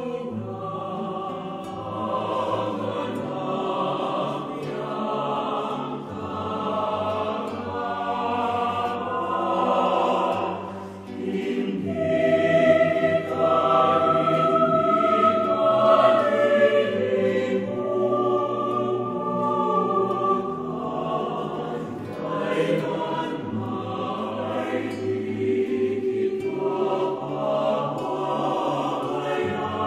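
Background music: a choir singing slow, held chords, the chords changing every couple of seconds.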